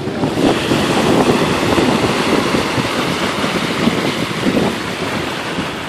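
Shallow surf washing up and back over the sand at the water's edge, with wind rumbling on the microphone.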